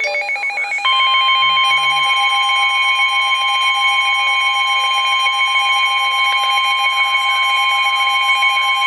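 Emergency Alert System attention signal for a severe thunderstorm warning: a brief warbling electronic tone, then about a second in a loud, steady electronic alert tone that holds without a break.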